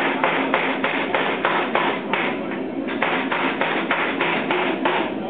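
A 400 lb Chambersburg air-powered forging hammer striking a 4140 steel bar in a steady run of blows, about three a second, over the machine's steady running hum. The blows soften briefly a little past two seconds in, then continue.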